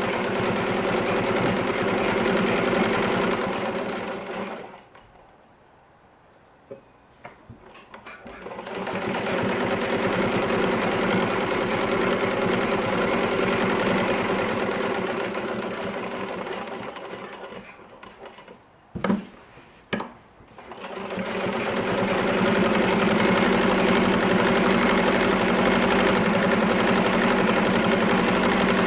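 Electric sewing machine stitching at a steady speed along a fabric edge. It stops twice for a few seconds, with a few sharp clicks in the pauses, then starts sewing again.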